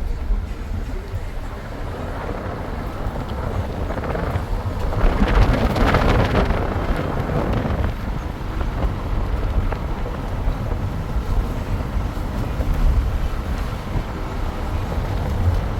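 Steady low rumble of a moving road vehicle with wind buffeting the microphone, swelling louder and brighter about five to seven seconds in.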